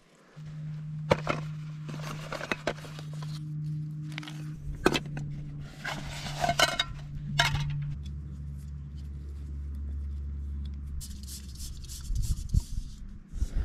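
Scattered clicks, clinks and rubbing of a backpacking cook kit being handled: a metal cook pot and a small canister stove being screwed onto its gas canister. Underneath runs a low steady hum that drops to a lower pitch about eight seconds in.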